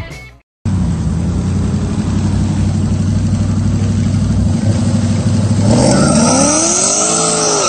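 V8 engines of a supercharged Ford SVT Lightning pickup and a heavy-cammed fifth-generation Camaro idling at the start line with a choppy rumble, then about five and a half seconds in revving hard in a steadily rising note as they launch.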